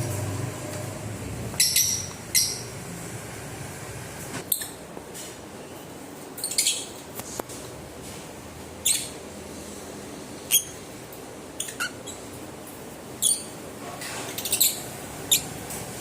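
Pet lovebirds chirping: about a dozen short, sharp, high-pitched chirps at irregular intervals, roughly one every second or so, some coming in quick pairs.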